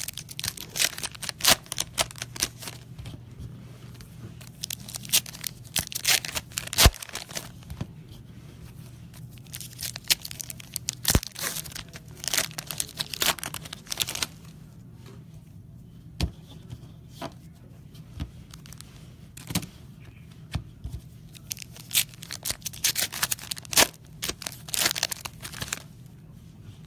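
Foil trading-card packs being torn open and the cards shuffled through: crinkling, tearing wrapper noise with a few sharp taps, over a steady low hum.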